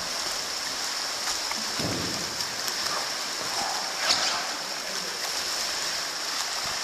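Kayak paddles splashing and churning pool water, a steady wash of water noise with a sharper splash about four seconds in.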